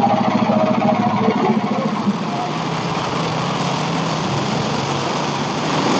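Portable bandsaw sawmill's small gasoline engine running steadily.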